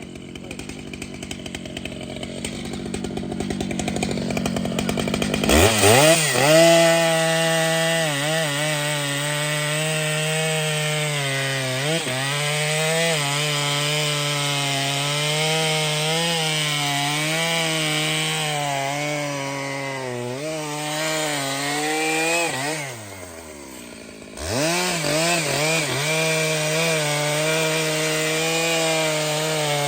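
Large two-stroke chainsaw cutting into a big tree trunk. It builds up over the first five seconds and then runs at full throttle, its pitch dipping and recovering as the chain loads in the wood. About 23 seconds in the revs drop off briefly, then it revs back up and keeps cutting.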